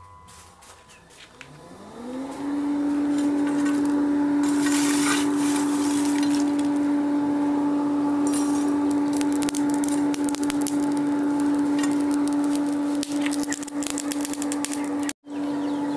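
Electric forge blower spinning up about a second and a half in, its hum rising in pitch and then running steady as it blows air into the charcoal fire, with crackling from the coals. The hum breaks off for an instant near the end.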